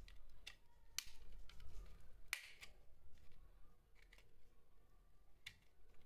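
Sharp plastic clicks and snaps as a thin metal pry tool works along the seam of a remote control's plastic case, levering the two halves apart. A few separate clicks, the loudest about two and a half seconds in with a short scrape after it.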